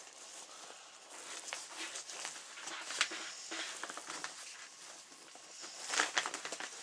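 Hand rubbing oily tanning cream into the flesh side of a coyote hide: soft wet rubbing with small clicks and crinkles from the plastic sheet underneath, louder for a moment about three seconds in and again near six seconds.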